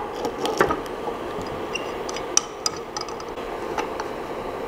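Scattered light clicks and crackles of fingers peeling the protective sticker off the Creality LD-002R resin printer's screen area, over a steady hum.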